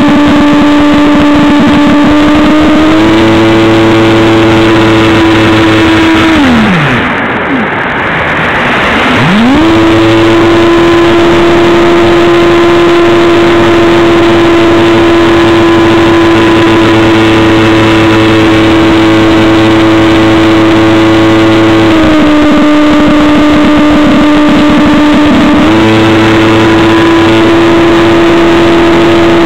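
Stryker F27C RC plane's electric motor and propeller, heard through a camera strapped to the plane, running at a steady high whine with wind rushing over the microphone. About six seconds in the throttle is cut and the pitch slides down to nothing, then the motor spins back up about three seconds later. A short dip in pitch comes past twenty seconds.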